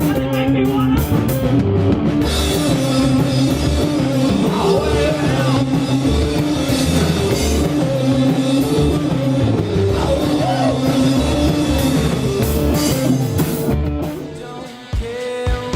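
Rock music with a drum kit, guitar and singing. The music drops away briefly about fourteen seconds in, then comes back.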